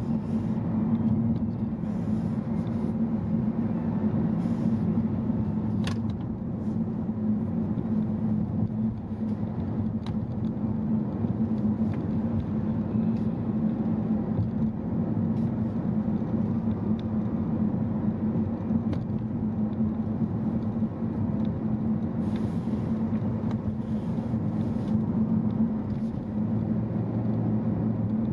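Steady rumble of a car being driven: engine and tyre noise with a constant low drone, and a few faint ticks.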